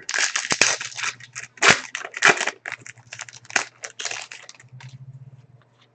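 Foil trading card pack wrapper crinkling and tearing as a pack is opened: a rapid run of sharp crackles that dies away about four and a half seconds in.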